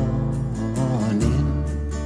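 Background music: a song with guitar and a sustained melody.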